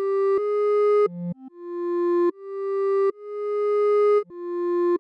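Clarinet-like wavetable synth patch in u-he Zebralette 3 played as a slow melody one note at a time, about eight notes. Each note swells up from silence with a slow attack.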